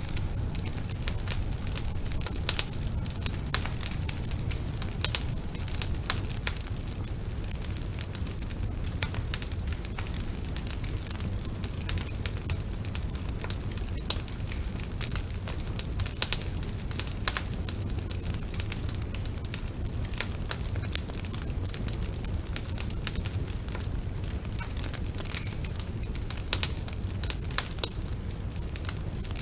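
Wood fire burning in a fireplace, with frequent sharp crackles and pops over a steady low rumble of the flames.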